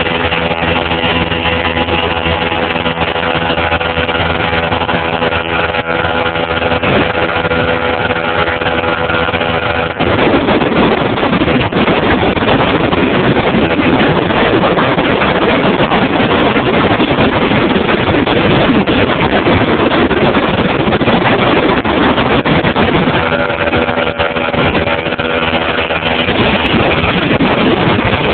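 Motorboat engine running steadily at speed. About ten seconds in, a louder, even rushing noise takes over and buries the engine's hum, which comes back briefly near the end.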